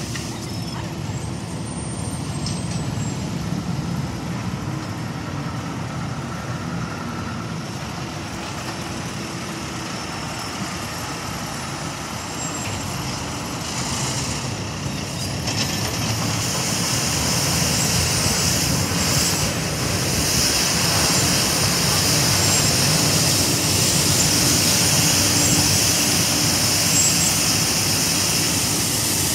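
Schwarze A7 Tornado regenerative-air street sweeper at work: its engine running with the steady hiss of the blower and gutter broom brushing the road, growing louder as it comes close about halfway through.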